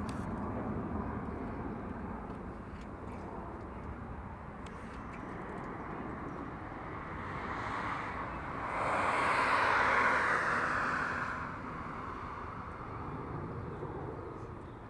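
Distant rumble of a Boeing 737-800's CFM56-7B jet engines as the airliner climbs away after takeoff, a steady low roar. About nine seconds in, a louder rushing noise swells for a couple of seconds and fades.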